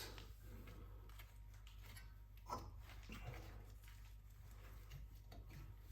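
Faint scattered clicks and light knocks of hands working loose the brake-sensor and ABS cable clips on a car's front strut, the clearest about two and a half seconds in, over a low steady hum.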